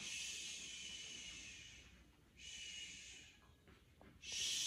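Strokes of a slicker brush through a dog's coat, three long hissing swishes, the last about four seconds in and the loudest.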